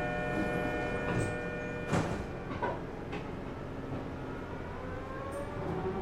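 Subway train: steady tones die away in the first second or two and a sharp thud comes about two seconds in, then a rising whine starts near the end as the train's motors begin to pull away.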